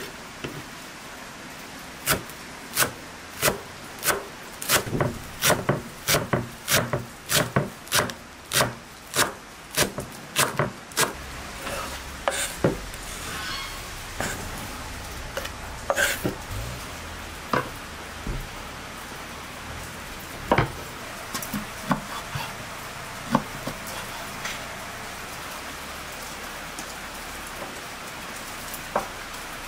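Large kitchen knife chopping fresh herbs on a wooden cutting board, regular knocks about one and a half a second that stop after about eleven seconds. Then the chopped herbs are scraped off the board into a glass bowl, followed by a few scattered knife knocks on the board.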